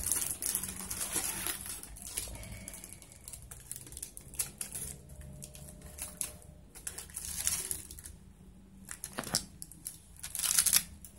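Plastic-wrapped cardboard boxes being handled and pulled out of a cardboard carton: rustling and crinkling wrap with light knocks, in irregular bursts.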